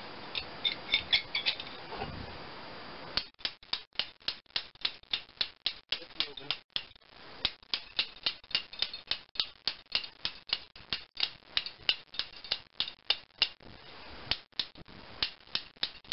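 A hammer tapping on a steel mower-deck spindle over and over, about two to three light metal-on-metal strikes a second, to drive a stuck part off the shaft.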